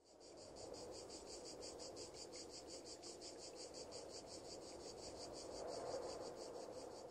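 Insects chirping in a fast, even pulse, high-pitched, with a faint low ambient murmur beneath.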